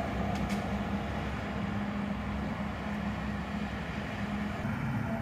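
CAF Urbos articulated tram running slowly around a tight turning loop on grass track: a steady low rumble of wheels and running gear with an even electric hum.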